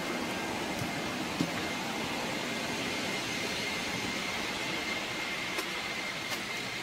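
Steady rush of air from a Boeing 777-300ER's cabin air conditioning while the airliner is parked, with a faint steady high tone and a few small clicks.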